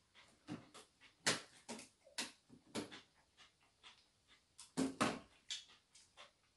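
Clear plastic bread bag crinkling and rustling in irregular crackles as a bread is pulled out of it, loudest about a second in and again near five seconds.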